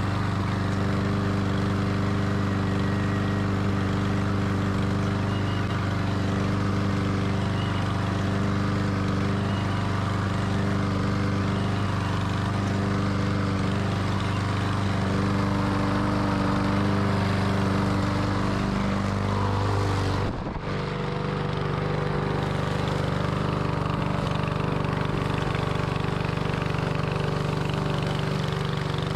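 Small petrol lawnmower engine running steadily. About two-thirds of the way through there is a brief break, after which it runs at a lower pitch.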